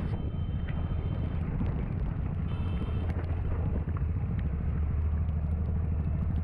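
Steady low rumble of a vehicle in motion, with wind on the microphone.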